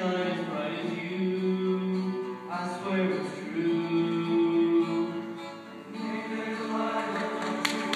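Male choir singing held chords in harmony, with acoustic guitar accompaniment.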